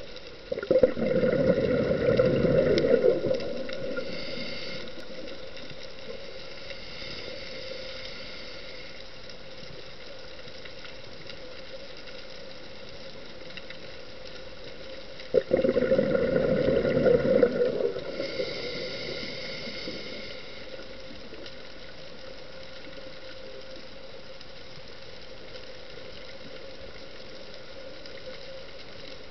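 Scuba diver's exhaled bubbles gurgling out of the regulator twice, about a second in and again about fifteen seconds in, each lasting two to three seconds. A fainter hiss follows each. A steady faint hum runs underneath.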